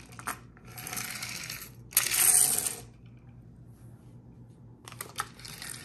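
Small plastic toy monster truck being worked back and forth on a countertop by hand, its wheels and mechanism whirring in three short bursts, the loudest about two seconds in.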